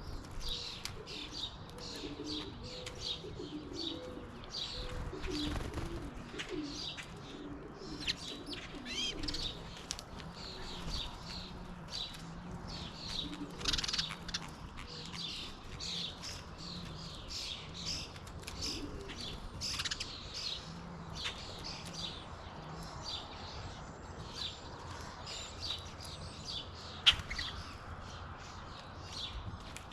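Many small birds, sparrows among them, chirping steadily at a feeder in quick overlapping calls, with low cooing calls under them for much of the stretch. A single sharp click stands out near the end.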